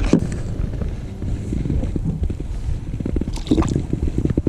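Water sloshing and gurgling against a kayak hull, with irregular knocks and a low rumble of handling and wind noise on the microphone.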